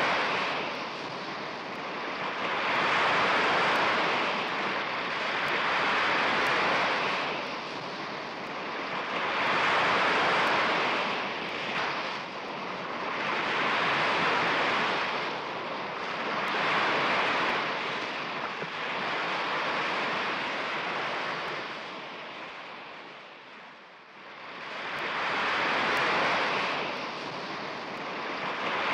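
Sea surf washing onto a beach, swelling and fading in slow surges about every three to four seconds, with a lull near the end before another wave builds.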